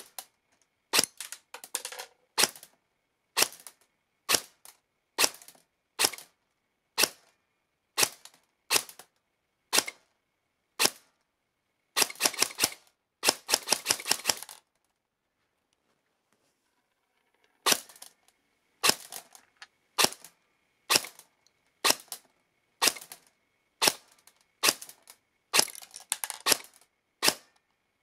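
Ares Amoeba airsoft electric gun, fitted with a 3D-printed air nozzle, firing BBs into a chronograph: single shots about a second apart, a short full-auto burst about halfway, a pause of a few seconds, then more single shots and another short burst near the end.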